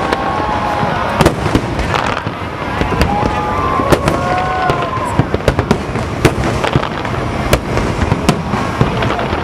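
Fireworks going off: many sharp bangs at irregular intervals, several a second, over continuous crackling.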